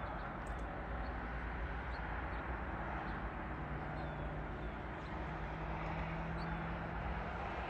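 Rural outdoor morning ambience: a steady low rumble of distant traffic, with a faint engine hum in the middle and a few faint bird chirps.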